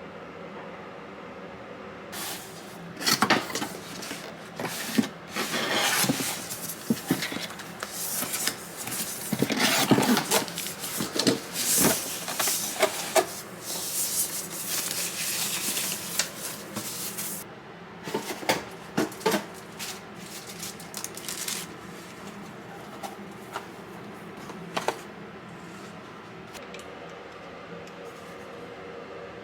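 Household handling noises: a busy stretch of clicks, knocks, rustling and scraping over a steady hum, thinning out to a few isolated clicks near the end.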